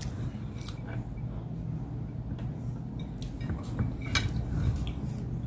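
Eating with bare hands: scattered light clicks and taps of fingers on a plate, with chewing of roast chicken.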